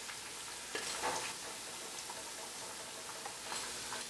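Hot oil sizzling steadily around potato vermicelli cutlets deep-frying in a kadai, with a few light clinks of a steel slotted spoon against the pan about a second in and near the end as the browned, crispy cutlets are lifted out.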